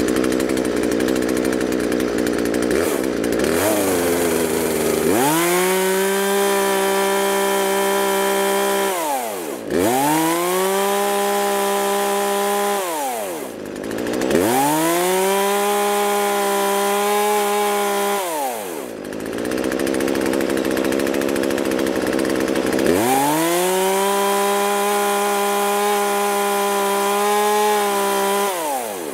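Small two-stroke gasoline chainsaw engine idling, then revved to full throttle and held four times, about four seconds each, dropping back to idle between. The top revs are being read on a tachometer while the high-speed carburetor mixture is set.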